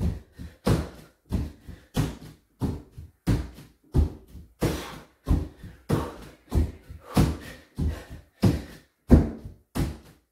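Bare feet thudding on a wooden floor during squat thrusts, landing each time the legs jump in to the chest and back out, in a quick steady rhythm of about two or three thuds a second.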